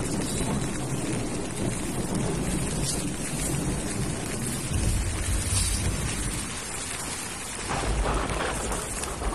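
Steady rain hissing, with low rumbles of thunder about halfway through and again near the end.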